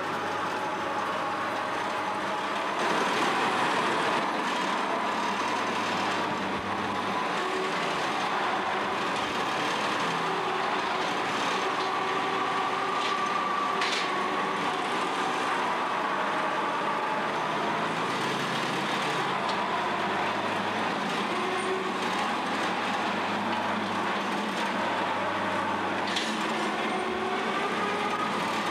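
Home-built forklift made from an International 201 swather, its 42 hp C-135 engine running steadily under way, with a whine that drifts up and down in pitch and one brief sharp click about halfway through.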